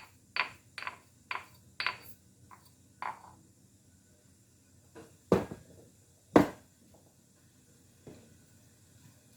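Kitchen utensil knocking and clinking against a mortar and bowl as pounded herbs are scraped out into the bowl: a run of sharp taps about two a second, then two louder knocks about a second apart.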